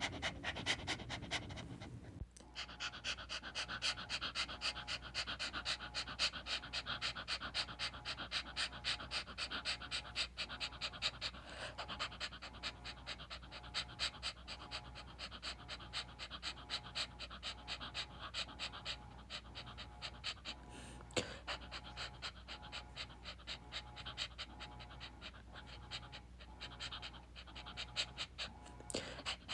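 A dog panting rapidly and rhythmically, with a brief break about two seconds in.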